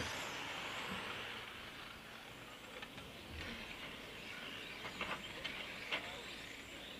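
A pack of 1/8 scale electric on-road RC racing cars running past, the noise of motors and tyres fading as they move off down the track, with a few short clicks about five to six seconds in.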